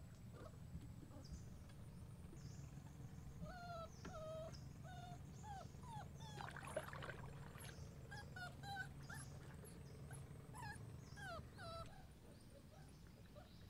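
A puppy whimpering: about a dozen short, faint whining calls, each bending in pitch, starting a few seconds in and stopping near the end. A brief splash of a paddle stroke in the water comes midway.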